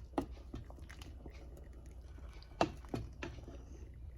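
Spoon moving through a pot of thick soup: faint wet sounds and a few soft knocks against the pot, the sharpest about two and a half seconds in, over a low steady hum.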